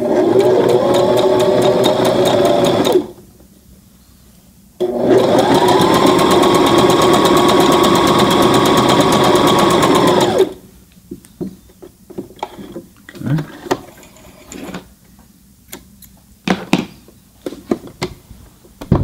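Brother ST371HD sewing machine stitching a stretch stitch through knit fabric: it runs for about three seconds, stops, then runs again for about five and a half seconds, speeding up at the start and holding a steady pace before stopping. After that come scattered clicks and rustles.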